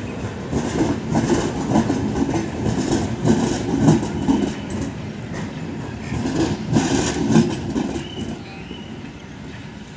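Passenger coaches of an Indian Railways express rolling past at slow speed, their wheels rumbling and clattering over rail joints and points in uneven bursts. The clatter dies down after about eight seconds.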